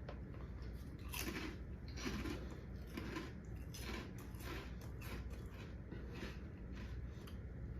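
A person chewing crunchy grain-free puff snacks, with crisp crunches about twice a second.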